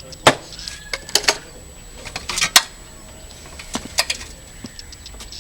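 Building work on a construction site: irregular sharp knocks and clicks, about a dozen in the space of a few seconds, bunched together about halfway through.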